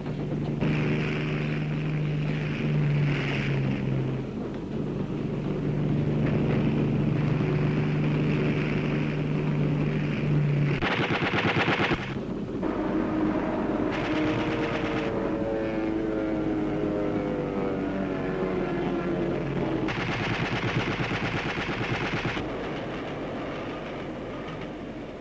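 An air attack on a moving train: a steady aircraft drone over the train, a short burst of machine-gun fire about eleven seconds in, a slowly falling whine, and a loud rushing burst near the end.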